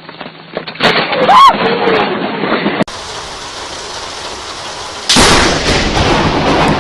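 Storm noise: a rushing din of wind and rain in several short clips cut together. The loudest part breaks in abruptly about five seconds in.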